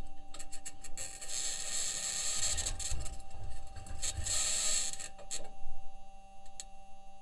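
Perseverance rover's metal wheels grinding and scraping over Martian rock as it drives, heard through its onboard microphone. Irregular clicks and scrapes, with louder hissy scrapes about one and a half and four seconds in, over a faint steady tone.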